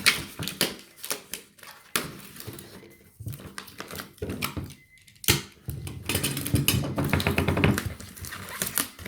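Packing a cardboard box: scattered knocks and rustles from handling cardboard and bubble wrap, then a sharp knock about five seconds in and a run of rapid rasping clicks as brown packing tape is pulled off the roll.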